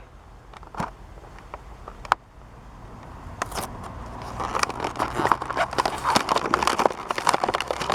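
Toy packaging being pried and torn open by hand: a couple of sharp clicks in the first seconds, then dense crackling and crinkling that grows louder from about halfway on.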